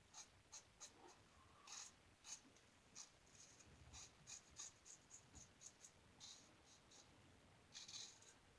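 Single-edge safety razor, a 1901 New Gem lather catcher with a Gem blade, scraping through lathered stubble in a quick series of short, faint strokes, with a few longer strokes near the end.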